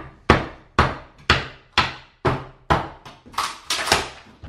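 A large wooden mallet pounds the end of a steel pry bar to drive it under old floorboards and work them loose. The sharp knocks come steadily, about two a second, and bunch closer together near the end.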